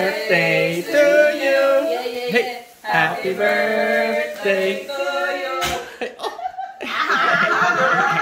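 Human voices throughout, with some long drawn-out notes and a short pause a little past the middle.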